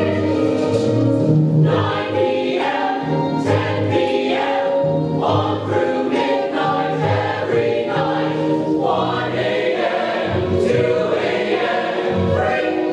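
A chorus of voices singing a show tune from a stage musical.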